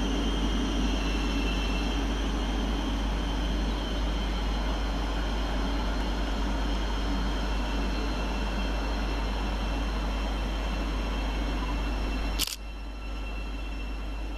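A train running through the station: a steady rumble with a thin high whine. About twelve and a half seconds in a sharp click cuts it off, and it is quieter after.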